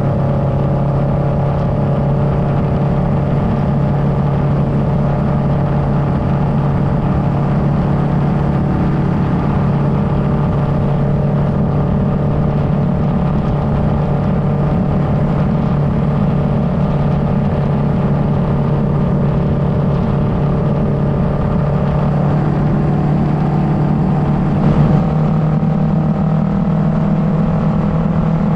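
2009 Kawasaki Versys 650's parallel-twin engine running at a steady cruising speed, heard from the rider's position with a constant rush of wind and road noise. The engine note changes slightly a few seconds before the end.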